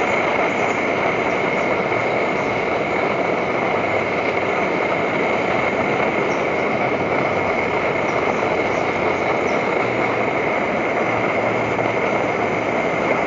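Primus MFS multi-fuel backpacking stove burning kerosene with its control valve fully open: a steady rushing burner noise with a thin high tone running through it, heating a pot of water close to the boil.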